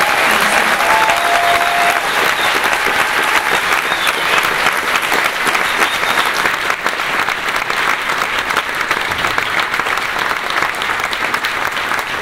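Audience applauding in a concert hall at the end of a song, a dense, steady clatter of clapping with a short whistle about four seconds in, easing a little toward the end.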